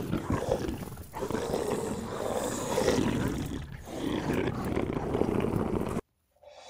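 Rough, drawn-out Bigfoot-style roaring growls, broken by short pauses about a second and nearly four seconds in, cutting off abruptly about six seconds in.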